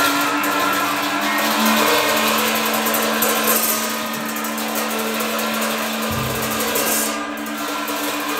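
Tibetan ritual horns blown in long, buzzing held notes, with hand cymbals clashing and shimmering over them.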